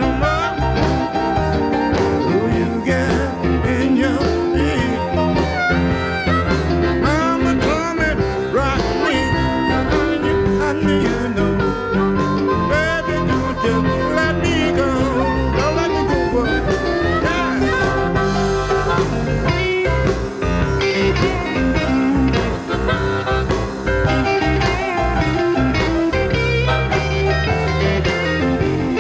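Live electric blues band playing, with bending harmonica and electric guitar lead lines over bass and drums.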